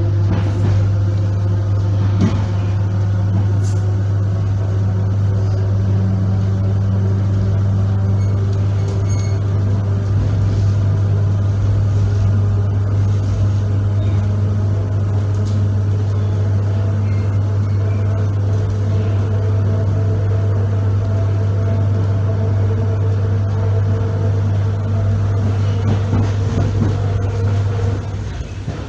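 ER9P AC electric train heard from inside the passenger car while moving: a loud, steady low electrical hum from its traction equipment, with fainter higher tones over a rolling rumble. The hum cuts out about a second before the end.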